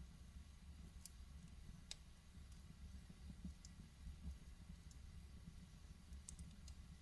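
Wood fire in a fireplace crackling quietly: a soft low rumble of burning under sparse sharp pops, with a quick cluster of three pops near the end.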